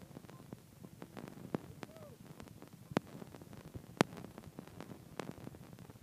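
A few isolated sharp clicks, irregularly spaced and the loudest about three and four seconds in, over a faint steady hiss; the band's guitar and ukulele music is not heard, as if the audio has dropped out.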